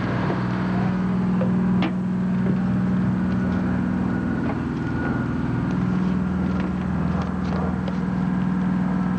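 A steady low mechanical hum of an engine running, with a few light knocks over it.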